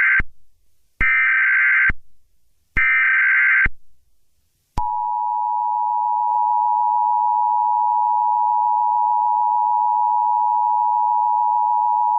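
Emergency Alert System header: three short bursts of warbling digital data, each about a second long, followed about five seconds in by the steady, piercing two-tone attention signal that announces a new alert.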